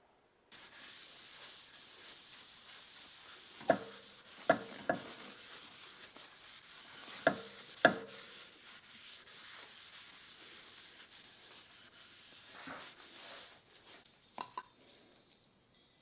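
Cloth pad rubbing finish onto a purpleheart wood cutting board: a steady scrubbing hiss, broken by a few sharp knocks, two close together about four seconds in and two more near eight seconds.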